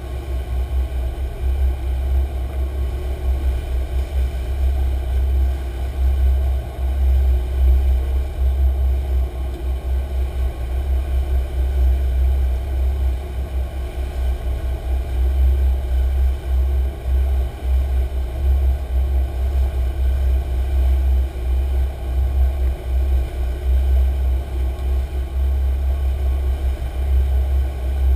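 Sportfishing boat's engines running while trolling, a steady low rumble that flutters in level.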